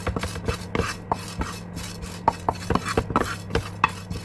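Melon seeds being stirred in a pan with a spatula, scraping and clicking against the pan several times a second, over a steady low hum.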